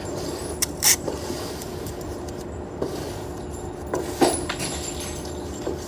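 A few sharp metallic clicks and clinks of pistol cartridges being handled and taken out, over a steady low hum.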